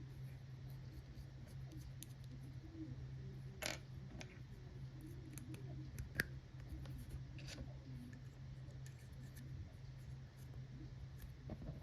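Small sharp clicks and light scraping from the plastic parts of a Lamy ink cartridge converter being handled and taken apart, a few louder clicks among them, over a steady low hum.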